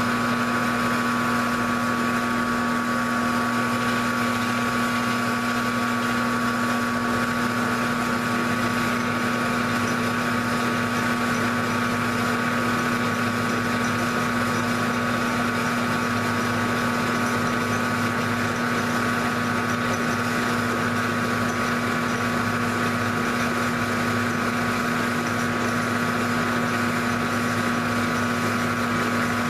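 Grizzly G0705 mill/drill running steadily, its motor and spindle drive giving a constant hum with a high whine, as a two-flute end mill is fed slowly through a cut.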